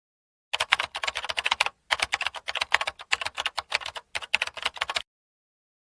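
Rapid computer-keyboard typing, a fast run of key clicks that starts about half a second in, pauses briefly near two seconds, and stops abruptly about five seconds in.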